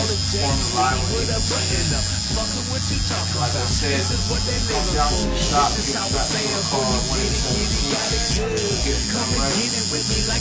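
Steady low electric buzzing hum, with fainter wavering sounds in the middle range above it.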